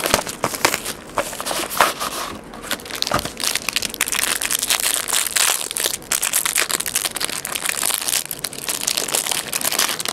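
Clear plastic shrink-wrap crinkling and crackling as it is torn off a trading-card box and crumpled in the hand, then stopping suddenly.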